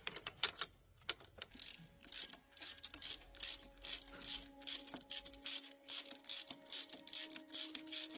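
Mechanical work sound: a run of short, sharp clicking strokes at several a second, over soft background music that comes in about three seconds in.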